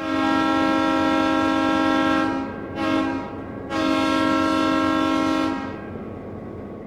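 Train air horn sounding a chord of several notes: a long blast, a brief toot, then a second long blast, over a low rumble from the train that fades away near the end.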